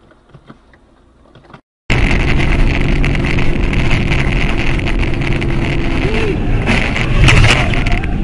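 After a faint stretch, a loud, steady vehicle noise starts suddenly about two seconds in: engine hum under a dense rushing noise. It is loudest about seven seconds in.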